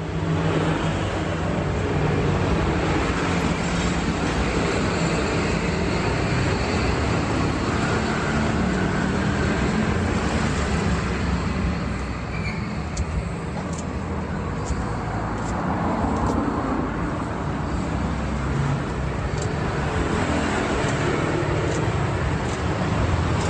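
Steady road traffic noise, with a few light scissor snips of garlic chives being cut into batter around the middle.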